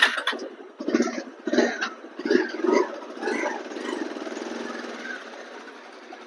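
Bajaj Pulsar 220 single-cylinder motorcycle engine revved in several throttle blips, then running steadily and fading as the bike pulls away on a test ride with its newly fitted chain and sprockets.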